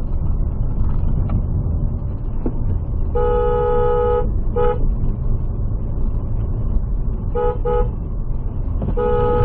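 Car horn honking in several blasts: one long blast about three seconds in, a short toot just after, two quick toots later, and another long blast near the end. Beneath it a steady low engine and road rumble, heard from inside the car cabin.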